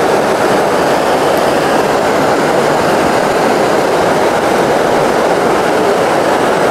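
Steady rush of a fast river running over rocks, an even, unbroken noise.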